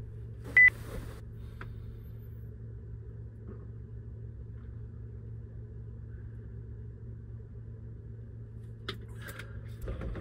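Steady low ventilation hum inside a capsule-hotel pod, with one short high beep about half a second in and some rustling of bedding near the end.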